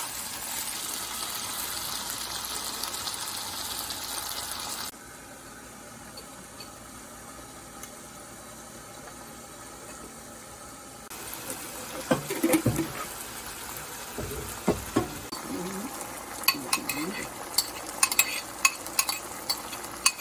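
Chicken, canned fried dace and string beans sizzling as they are stir-fried in a wok. The sizzle is steady, then drops quieter about five seconds in. From about eleven seconds on, the metal spatula clanks and scrapes against the wok again and again.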